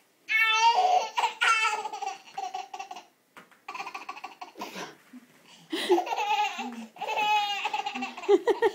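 A baby laughing hard and high-pitched, in several bursts of a second or two with short breaths and pauses between.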